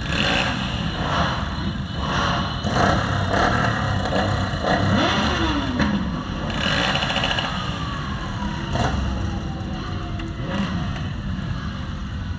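Motor vehicles driving past with engines running and revving. In the second half one sound falls slowly in pitch as it goes by.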